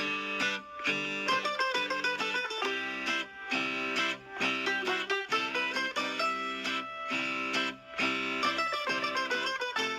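Background instrumental music led by plucked guitar, with a steady rhythm of picked and strummed notes.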